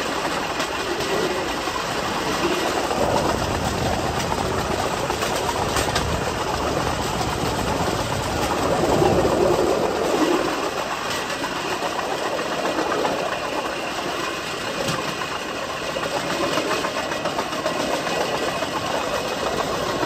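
Steel wheels of a pedal rail bike (vélorail) rolling along railway track in a steady rumble, with a few sharp clicks as the wheels cross rail joints.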